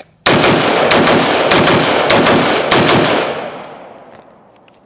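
Rapid semi-automatic fire from an unsuppressed Midwest Industries ultra-lightweight AR-15 with a 12-inch Criterion barrel: a fast string of about ten shots over roughly three seconds, with the echo fading away afterwards.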